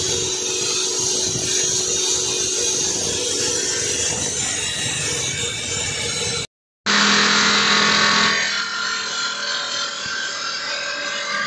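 Water-cooled circular stone saw cutting through a white marble slab, a steady, loud cutting noise. About six and a half seconds in the sound breaks off for a moment, and a second wet saw is heard cutting another marble slab, with a low steady hum for the first second or so.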